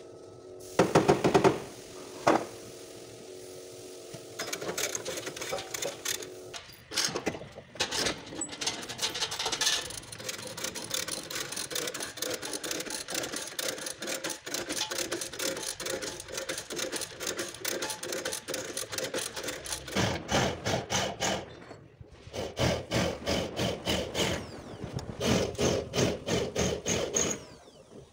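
Hammer blows on car-body sheet metal, coming in quick bursts of several strikes a second with a metallic ring. Between the bursts there is a long, denser stretch of rattling and scraping metalwork.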